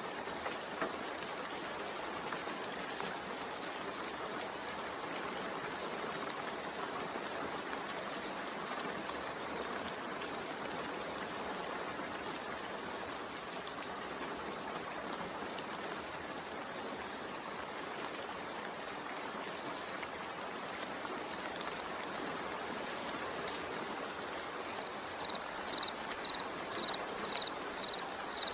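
Steady rain. Near the end a high-pitched chirp starts repeating about twice a second.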